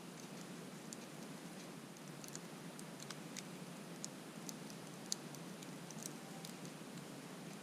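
Wood campfire crackling faintly, with scattered irregular small pops.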